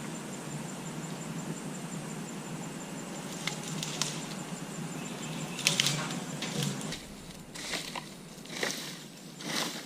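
Dry dead pine branches crunching and crackling as they are handled and pressed down. The crunches come in a series, about one a second, through the second half.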